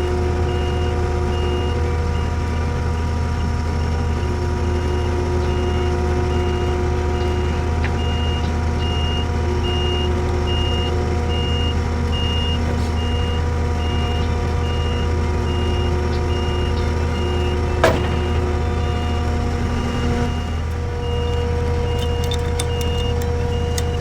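Skid steer engine running steadily under load while its reversing alarm beeps over and over. A single sharp knock comes about 18 seconds in.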